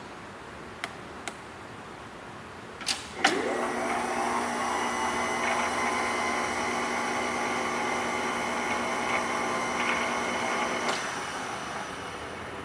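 Bridgeport table power feed unit: a few switch clicks, then its small electric motor winds up with a rising whine about three seconds in, runs steadily driving the mill table, and stops about eleven seconds in.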